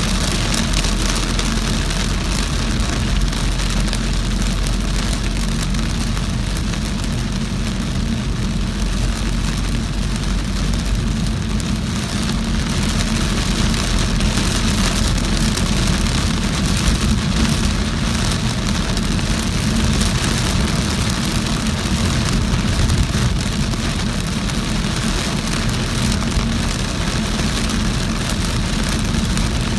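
Heavy rain pattering steadily on a moving car, over a constant low rumble of engine and tyres on a wet road.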